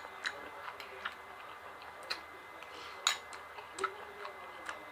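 Someone eating close to the microphone: scattered light clicks and smacks of chewing, about one every second, the loudest about three seconds in.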